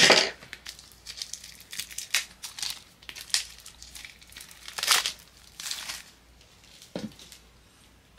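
Packaging being unwrapped by hand: crinkling and crackling, with a loud rustle at the start and a few more louder rustles past the middle.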